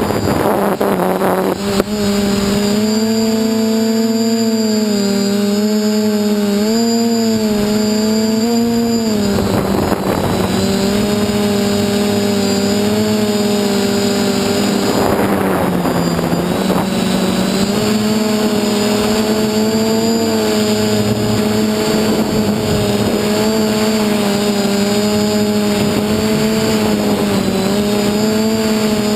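DJI F450 quadcopter's electric motors and propellers humming loudly and steadily, the pitch wavering a little up and down as the throttle changes. Brief rushes of air noise come through three times: near the start, about ten seconds in, and about fifteen seconds in.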